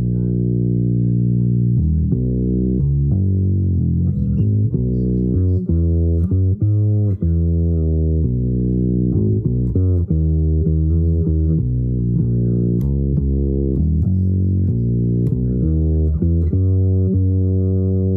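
Bass guitar played solo, plucking a continuous improvised line of low notes that change every fraction of a second.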